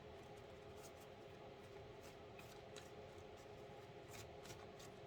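Near silence: faint, scattered ticks of tarot cards being handled and laid down, over a steady low room hum.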